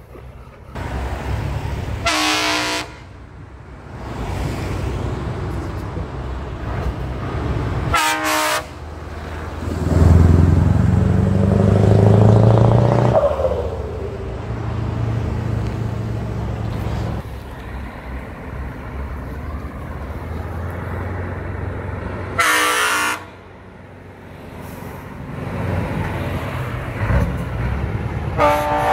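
Scania V8 trucks with open-pipe exhausts driving past, their engines running with a low, steady sound and one engine's note rising about ten seconds in as it revs. Short, loud truck horn blasts sound four times: near the start, about eight seconds in, about twenty-two seconds in and at the very end.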